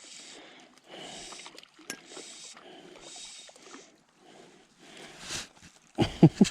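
A person breathing in short, even breaths about once a second, then breaking into laughter near the end.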